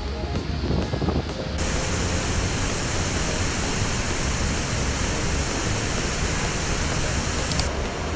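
Steady rushing of turbulent water. It gets hissier about one and a half seconds in and changes abruptly near the end.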